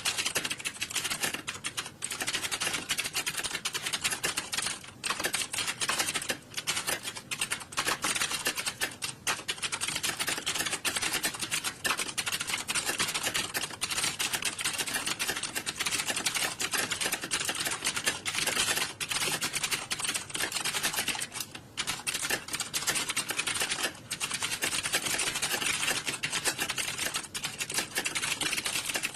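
Many computer keyboards being typed on at once: a dense, continuous clatter of key clicks with a few brief lulls.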